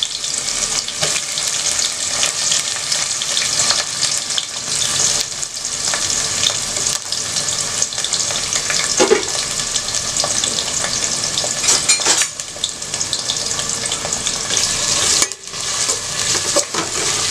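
Sliced onions sizzling steadily as they fry in hot oil with whole spices, with a few sharp clicks of the pan being stirred.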